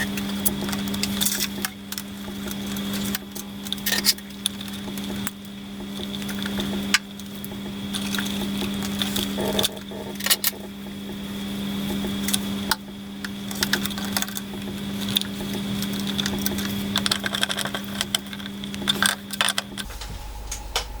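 Scattered small clicks and metallic taps from wires and a screwdriver being worked into the terminals of a lathe isolation switch. A steady low hum runs underneath and stops near the end.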